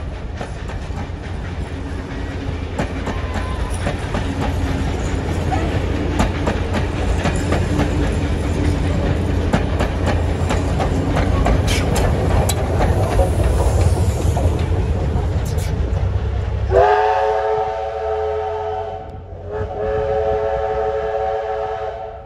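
A train running close by: a heavy low rumble with wheels clicking over the rail joints. It stops suddenly and the train's whistle sounds two long blasts, a chord of several tones, the second blast a little longer than the first.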